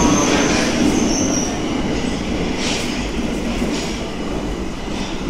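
Tokyo Metro Ginza Line subway train running along the platform with its wheels squealing, the high squeal fading out about a second and a half in while the rumble carries on.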